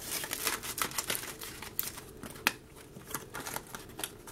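Light, irregular clicks and rustles of small items being handled as wrapped band-aids are put into their box, with one sharper click about two and a half seconds in.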